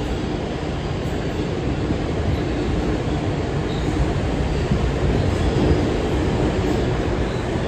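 R142 subway car running between stations, heard from inside the car: a steady rumble of wheels on rail and car body that stays at an even level throughout.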